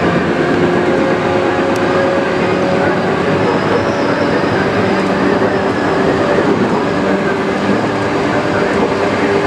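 Tokyu 8500 series electric train running, heard from its motored lead car: steady whine of the traction motors and gears over the rumble of wheels on rail.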